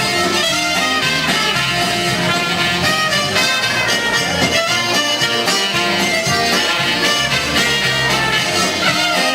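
Accordion music playing continuously.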